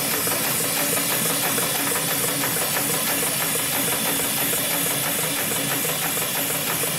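Hightex 7373BP automatic spiral sewing machine running steadily as it stitches through a thick stack of cloth discs for a buffing wheel, with a steady hiss over the machine noise.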